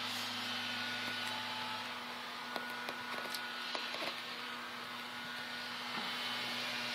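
Steady mechanical hum with a low tone that drops out about two seconds in and comes back near the end, and a few light clicks in the middle.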